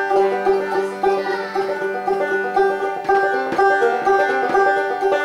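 Five-string banjo being picked: a continuous run of quick plucked notes with a deep tone.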